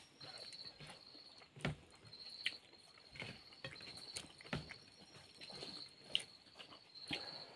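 Crickets trilling in a high steady chirp that repeats in short runs. A few sharp clicks and knocks come from hands and food at the table, the sharpest one a little after six seconds in.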